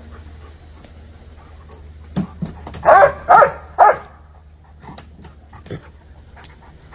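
A dog barking three times in quick succession, about three seconds in.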